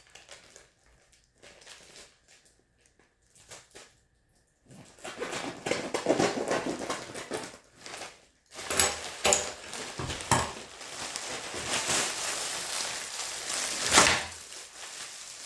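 A parcel being opened by hand. A few faint taps and rustles come first, then several seconds of packaging rustling, crinkling and tearing that grows louder about halfway through, with one sharp loud noise near the end.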